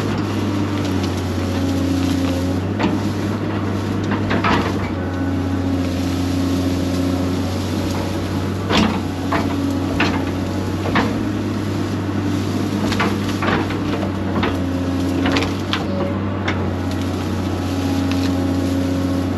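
Excavator engine running steadily under load, with a higher tone that comes and goes as the machine works. Scattered sharp knocks and cracks run through it, the loudest about nine seconds in, as the machine tracks forward and digs up small pines and their roots.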